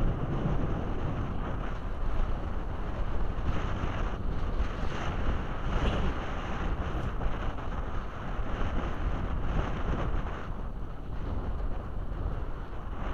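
Strong wind buffeting the microphone in gusts, over the wash of choppy bay water.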